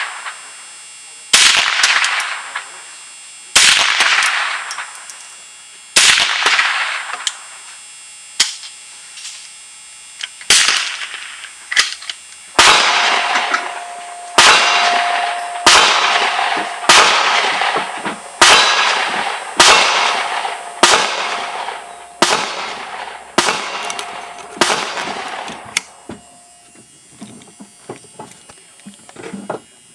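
Semi-automatic Ruger 10/22 .22 LR rifle firing a string of single shots, at first about two seconds apart, then faster at about one a second before stopping, followed by a few small clicks.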